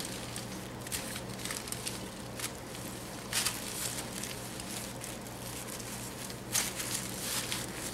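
Gloved hands rubbing flour onto a chuck roast on aluminum foil: intermittent soft crinkling and rustling of the foil and latex gloves, over a low steady hum.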